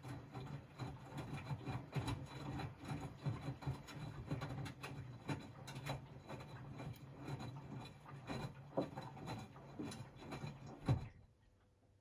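A Miele W 426 front-loading washing machine tumbling its wash: the drum motor hums steadily under soft, irregular knocks and rubbing from the laundry turning in the drum. About eleven seconds in the drum stops and it goes almost quiet, the pause in the wash rhythm before the drum turns the other way.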